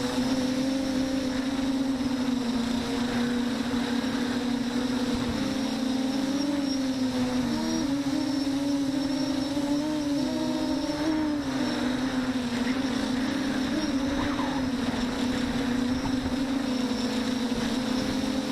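Electric motor and propeller of an FPV model aircraft in flight, a steady buzzing hum whose pitch wavers up and down a little.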